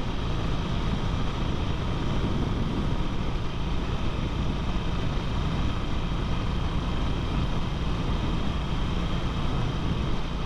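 Harley-Davidson Sportster's air-cooled V-twin engine running steadily at cruising speed, with wind and road noise, no change in pace.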